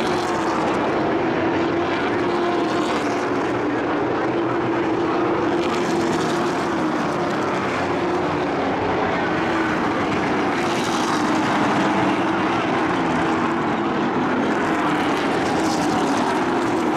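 A pack of race trucks running at speed on a paved short oval, many engines droning together, with a steady wavering pitch as the trucks circulate.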